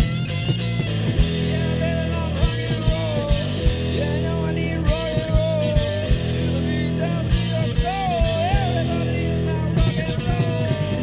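Rock music: a band with drum kit, bass and guitar plays steadily, with regular drum hits under a lead melody line that bends and wavers in pitch.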